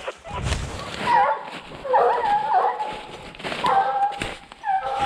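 A pack of scent hounds baying in full cry while chasing a wild boar: several voices giving drawn-out, wavering howls that overlap and follow one another.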